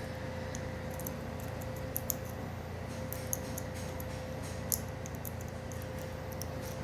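Lock pick working the pins inside a Master Lock No. 5 padlock: faint, irregular small metallic clicks over a steady background hum.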